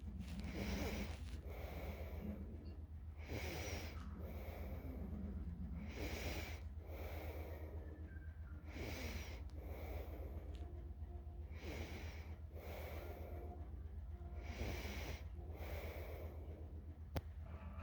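Quiet snoring: slow, even breaths, each an in-and-out pair, repeating about every three seconds over a steady low hum. A single sharp click near the end.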